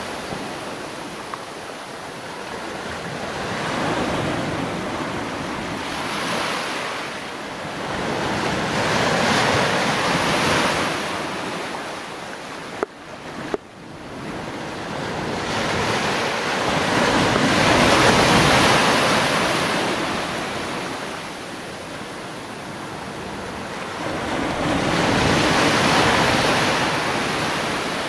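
Sea surf washing around rocks, swelling and fading every several seconds, with wind on the microphone. About halfway through, the sound briefly dips with two sharp clicks.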